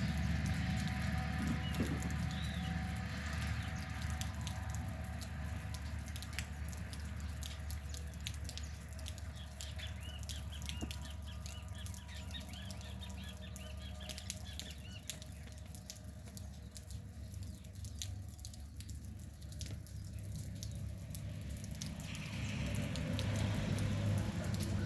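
Rain pattering and dripping, many fine drop clicks over a steady low rumble. A bird chirps repeatedly for several seconds midway.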